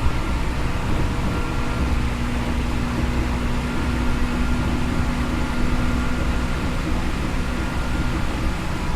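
Interior running noise of a Seibu N2000 series electric train: a steady rumble of wheels and car body with a steady hum through most of it.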